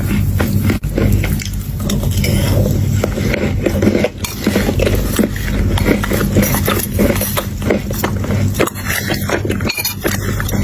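Crunchy chewing of chocolate chunks, with a spoon clinking against a bowl in quick, irregular clicks.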